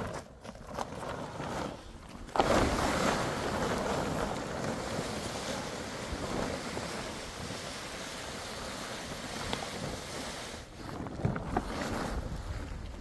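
Large plastic tarpaulin rustling as it is dragged over the ground. The noise starts suddenly about two and a half seconds in, stays strong, then turns patchier near the end.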